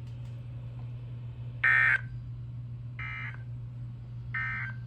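Three short Emergency Alert System end-of-message data bursts, about a second and a half apart with the first the loudest, marking the end of the alert message. A steady low hum from the weather-radio broadcast runs under them.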